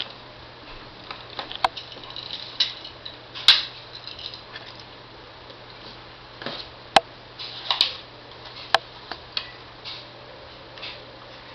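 Scattered light clicks and taps, with a few sharper clicks among them, over a faint steady low hum.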